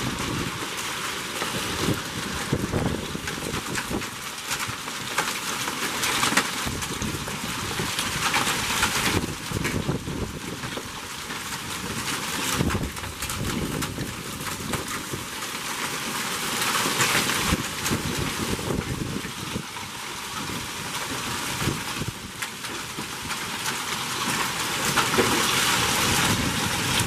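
Hail mixed with heavy rain pelting down: a dense, constant patter of countless small impacts, swelling and easing in loudness as the storm gusts.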